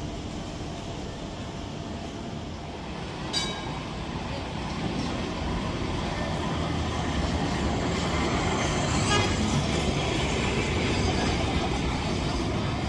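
Heritage electric tram rolling along street rails, its wheels and running gear rumbling louder as it draws near and passes close by. Two brief sharp clicks come a few seconds apart.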